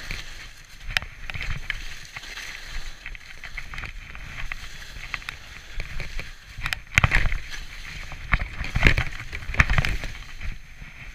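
Skis sliding and turning through soft, deep snow: a swishing hiss broken by scrapes and knocks, louder through several turns in the second half.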